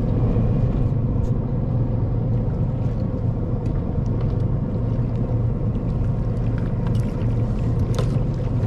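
Boat motor idling steadily with a low rumble, with light knocks from handling on board and a brief louder burst near the end.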